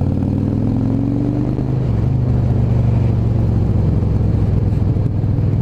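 Yamaha V-Star 650's V-twin engine pulling under way, heard through a helmet-mounted microphone. Its note rises for the first couple of seconds, drops about two seconds in, then runs steady.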